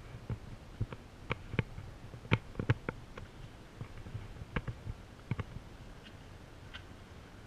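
Scattered short, sharp clicks and taps at irregular intervals, loudest between two and three seconds in, over a faint steady background.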